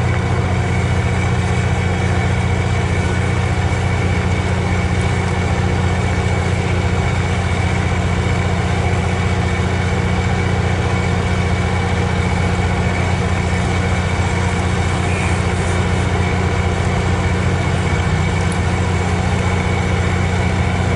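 Diesel locomotive of a stopped MARC commuter train idling, a steady, unchanging low drone.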